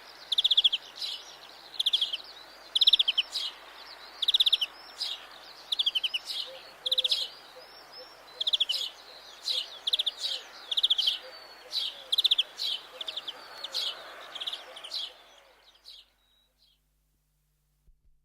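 European greenfinch singing: short, rapid trilled phrases repeated about once a second over a faint background hiss, stopping near the end.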